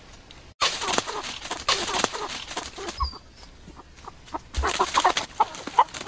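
A rapid series of short animal calls over a crackle of dry leaves, starting abruptly about half a second in.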